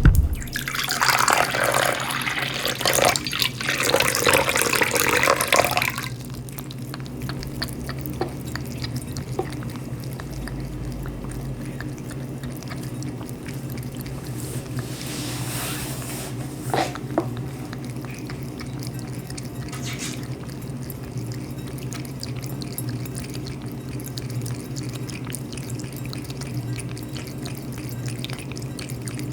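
A cat drinking water, with lapping and dripping. Water runs loudly for about the first six seconds, and a steady low hum sits underneath throughout.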